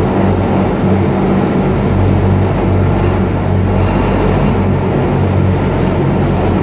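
Amphibious Duck tour boat's engine running steadily under way on the water: a loud, even, low drone.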